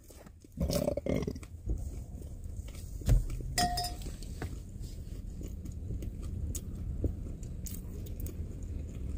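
Quiet pickup-truck cab: a steady low rumble with scattered small clicks and clinks, and a brief hum about three and a half seconds in.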